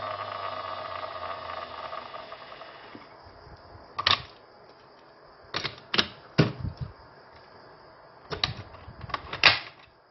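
An Auldey Armor Hero Tornado toy belt's electronic sound effect fades out as a ringing tone from its small speaker. Then come a series of sharp plastic clicks and snaps, about seven in all, as the belt's parts are pushed and handled.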